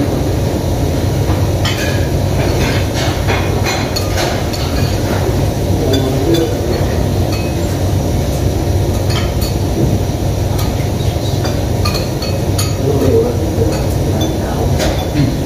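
Cutlery and dishes clinking irregularly as people eat at the table, over a steady low hum of room noise.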